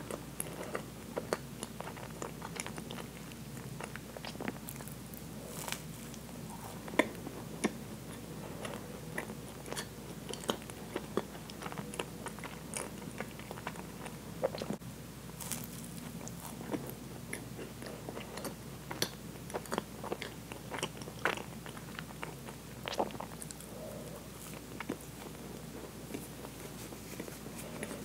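Close-miked chewing of a soft, cream-filled Twinkie sponge cake: wet mouth sounds and bites with many irregular sharp clicks and smacks.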